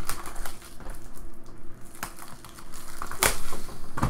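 Clear plastic shrink wrap being torn off a trading-card box and crumpled in the hands, crackling irregularly, loudest a little after three seconds in.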